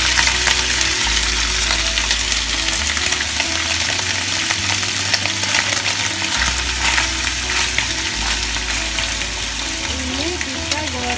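Boiled, still-wet beef tetelan (beef offcuts with fat and sinew) sizzling loudly in hot oil in a stainless steel frying pan, just added, with the scrapes and clicks of a plastic spatula stirring it.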